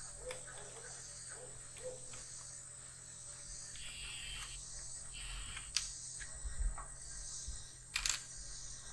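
Evening insect chorus of crickets or katydids: a steady, high-pitched, continuous trilling. A few sharp clicks cut through it, the loudest near the end.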